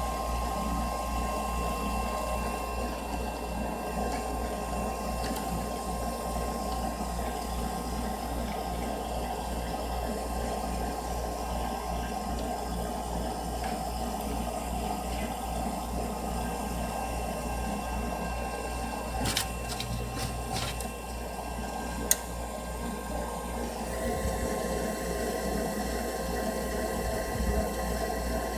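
Furnace running steadily with a deep hum and an even whooshing rush. A few sharp clicks come about two-thirds of the way through, and the pitch of the rush shifts slightly near the end.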